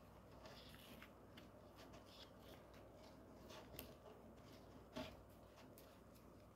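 Faint handling of paper cutouts: soft rustles and a few light paper clicks as a paper doll's dress is picked off a paper page, the clearest click about five seconds in.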